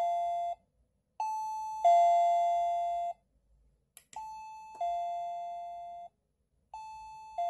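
Ang USA wireless doorbell receiver chiming a two-note ding-dong, a high note then a lower one, each ringing on and fading. It repeats about every two and a half to three seconds, and the later chimes are quieter as the volume is stepped down through its levels.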